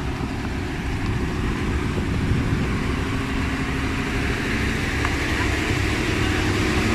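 River ferry's diesel engine running with a steady low rumble, with a hiss of noise swelling about halfway through.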